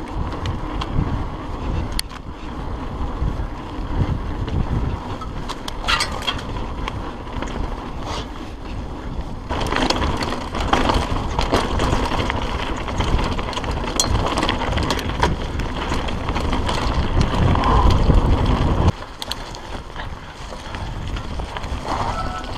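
An On-One hardtail mountain bike being ridden fast down a dirt and stony trail: wind buffets the camera microphone, the tyres rumble over the ground and the bike rattles over bumps. The noise grows about halfway through, is loudest just before the end, then drops suddenly a few seconds before the end as the bike slows onto grass.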